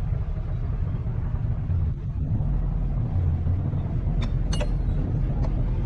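Heavy diesel construction machinery running with a steady low rumble, with a few short sharp metallic clicks about four to five seconds in.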